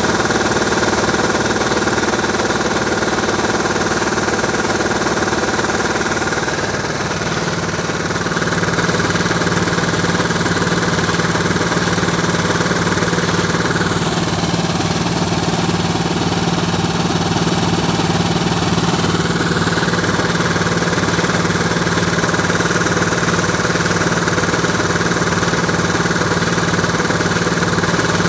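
Engine-driven air compressor running steadily, with a fast low pulsing, as it blows air down the hose into a new tube well to flush it, water spurting from the casing. Its note shifts slightly about seven seconds in.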